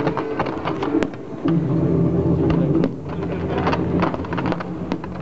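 Fireworks going off: a quick, irregular run of sharp bangs and crackles from bursting shells and strobing stars, with a louder report about a second in.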